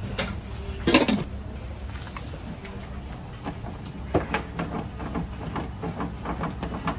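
Metal cooking utensils clattering at a pan-fried bun stall: one loud clank about a second in, then from about four seconds in a quick run of light taps and knocks, several a second, over a steady low hum.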